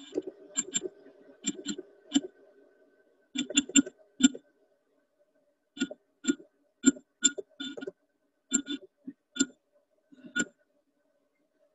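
A run of sharp clicks and taps, about twenty in all, coming in small irregular clusters with short pauses between them.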